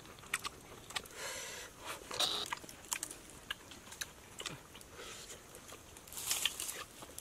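Scattered small crackles, clicks and rustles of hands working with fresh leaves and pieces of honeycomb over dry leaf litter, with a slightly louder rustle about a second in and another near the end.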